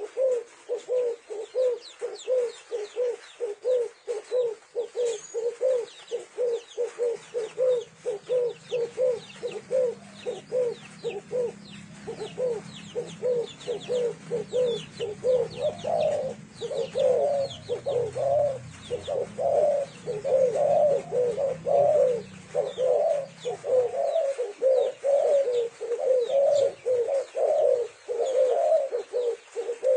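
Spotted doves (cu gáy) cooing over and over, two to three coos a second, louder in the second half, with faint high chirping above. A low hum runs underneath through the middle.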